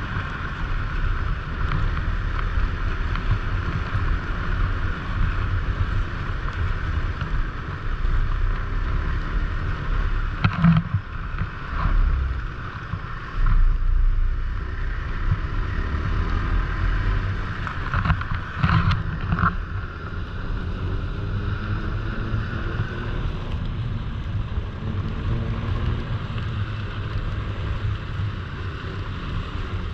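Snowmobile engine running steadily while riding, heard from on board the sled, with a few brief knocks around the middle.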